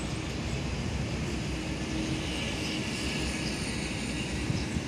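Steady, even engine drone with a faint constant hum running under it.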